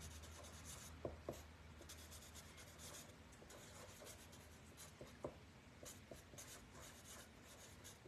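Faint scratching of a felt-tip marker writing on a card in short strokes, with a few light taps about a second in and again around five seconds.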